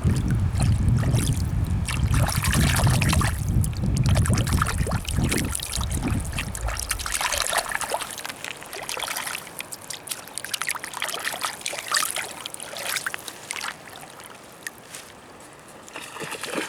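Creek water trickling and splashing over rocks. A low wind rumble on the microphone covers the first seven seconds or so, then drops away, leaving the water clearer.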